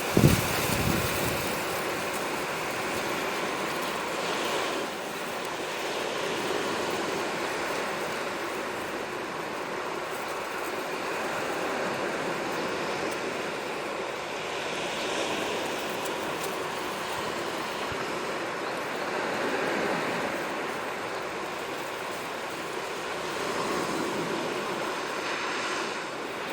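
Sea waves washing onto the shore, a steady rush that swells and falls back every four or five seconds. A sharp thump sounds right at the start.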